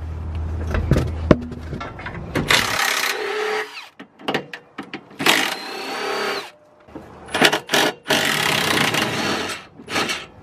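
Red Milwaukee Fuel cordless power ratchet spinning bolts out of a rear lower control arm in about five short runs, each with a rising motor whine. Metal clicks come between the runs.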